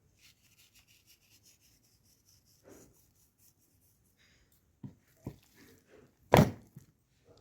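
Faint rubbing and scraping, then a few knocks, the loudest a sharp knock about six seconds in.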